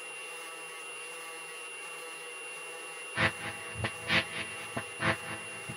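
Background music: a steady hum of held tones, with a drum beat coming in about three seconds in, hitting a little over once a second.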